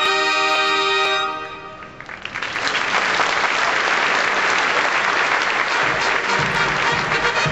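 A bugle corps of valveless B-flat bugles holds a chord that ends about a second and a half in, followed by sustained audience applause.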